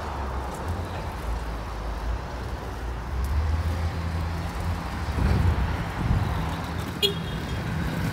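Car traffic running through a parking lot, a low steady rumble of engines and tyres that swells in the second half as a car drives toward the listener. A brief high squeak sounds near the end.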